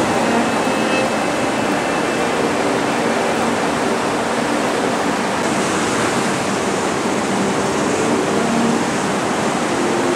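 Surf from the incoming tide washing up a sand beach: a steady rush of breaking waves and foam.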